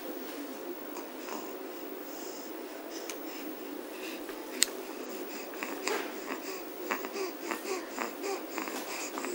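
Newborn baby's breathing and small mouth sounds over a steady low background hiss, with a sharp click about four and a half seconds in and a run of soft clicks and brief sounds through the second half.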